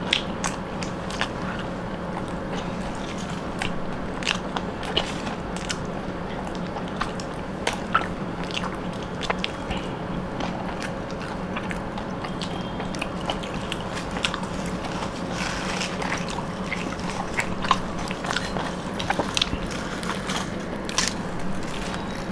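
People chewing and biting into homemade chicken rolls: an irregular scatter of small mouth clicks and smacks over a steady low hum.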